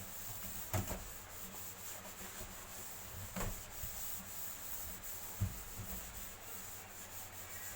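Dishes being scrubbed with a fine steel-wool scourer: a steady scratchy rubbing, with three short knocks of dishware.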